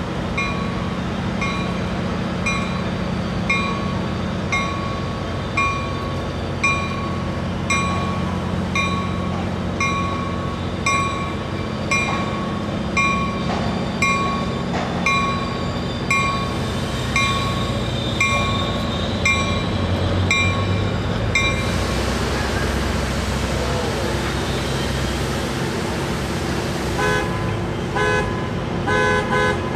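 Train bell ringing about once a second over the low rumble of an arriving Coaster commuter train. The bell stops about two-thirds of the way through, a long hiss of air follows as the train comes to a halt, and near the end a fast repeating beeping starts.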